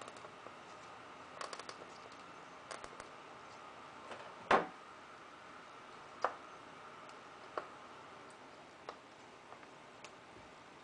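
Scattered light clicks and taps of hands handling a wooden spool wound with 3D-printer filament, with one louder knock about four and a half seconds in, over a faint steady background hiss.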